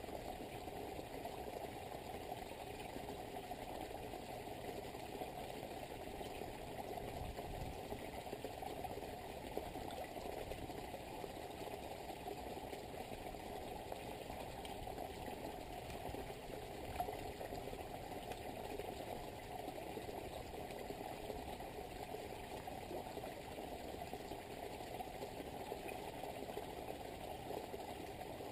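Small pond waterfall spilling over rocks into a garden pond: a steady, dull rush of falling water.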